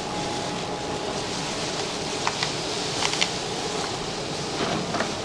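Steady background whoosh with a few light clicks and crackles, a handful of them about a second apart, as a gloved hand presses potato filling into crisp pani puri shells in plastic tubs.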